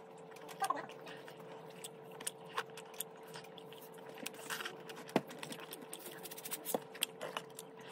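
Close-up eating sounds: chewing steak with wet mouth clicks and lip smacks scattered irregularly, over a steady faint hum.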